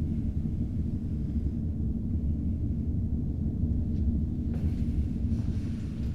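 A steady low rumbling drone with nothing higher above it, easing off at the very end.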